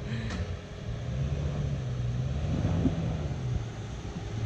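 First-generation Toyota Sequoia's V8 engine running at low revs under load as the SUV crawls up over a rock ledge, a steady low engine note.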